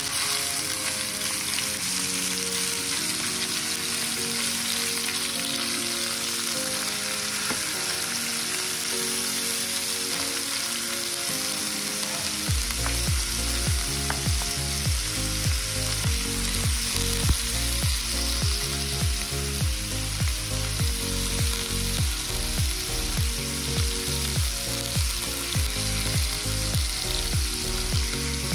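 Ground beef sizzling in hot oil in a frying pan while a wooden spoon breaks it apart, with a steady frying hiss. Background music plays underneath, and a steady beat comes in about halfway through.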